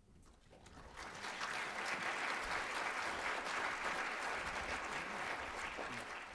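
Audience applauding. The clapping builds over the first second, holds steady, and begins to die away near the end.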